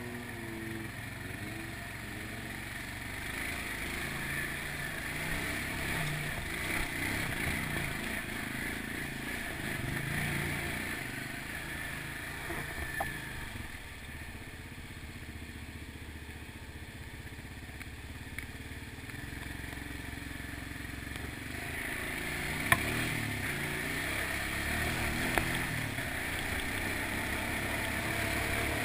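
ATV engine running as the quad is ridden over a rough trail, its pitch rising and falling with the throttle. Two sharp knocks come late on.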